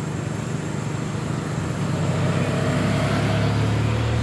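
Motor vehicle engine running close by, getting louder about two seconds in as it passes.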